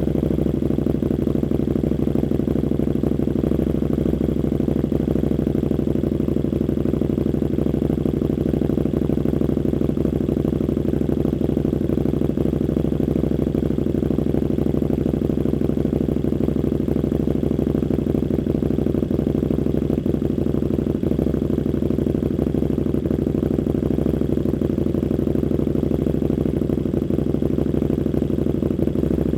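KTM Super Duke 1290 R's V-twin idling steadily through an Austin Racing V3 150 mm exhaust, with no revs and no change in pitch.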